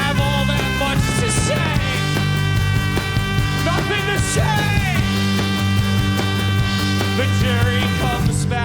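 Live rock band playing an instrumental passage with no vocals: steady bass notes, held and sliding pitched lines, and a few cymbal crashes.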